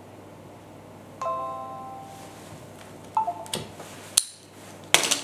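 Windows system chimes from a laptop's speaker: a ringing chime about a second in, then a short falling two-note chime, the kind Windows plays when a USB device is connected or removed. Sharp plastic clicks of a USB thumb drive being pulled out and handled follow near the end.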